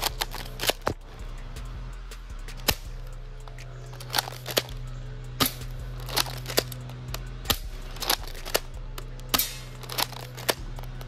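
Double Eagle M56B spring airsoft shotgun being pumped and fired over and over, about a dozen sharp clacks at irregular intervals.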